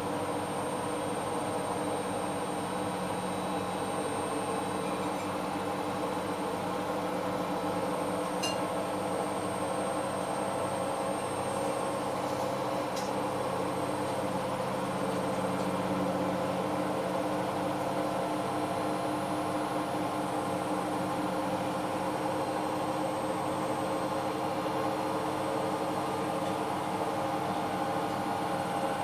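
Hoover H-Wash 500 washing machine running steadily on a synthetic wash cycle: an even motor hum with several steady tones and a background hiss.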